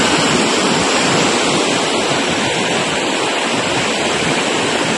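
Floodwater rushing through a swollen stream: a loud, steady rush of water.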